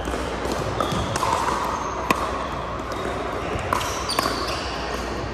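Pickleball rally: paddles striking the plastic ball in sharp pops, about five of them, the loudest about two seconds in. Short high squeaks of sneakers on the hardwood court come between the hits, over a steady murmur of voices in a large, echoing gym.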